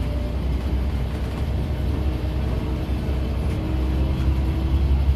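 1999 Volvo bus's diesel engine and drivetrain running as the bus drives, heard from inside the cabin: a steady low rumble with faint steady tones above it.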